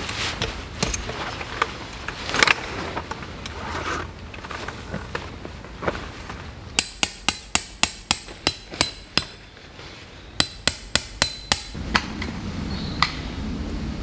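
A tent stake being hammered into the ground: two runs of sharp, ringing strikes at about four a second, the first run about seven seconds in and the second about ten seconds in. Before them, tent fabric rustles and is handled.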